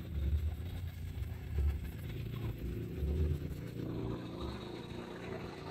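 Bezzera Victoria espresso machine running on test: a low hum that swells about every one and a half seconds, with a hiss joining about four seconds in.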